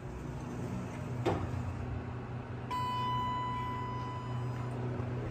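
Elevator call button pressed with a click, then about a second and a half later an elevator's electronic signal tone sounds, a single clear pitch held for about two seconds. A steady low hum runs underneath.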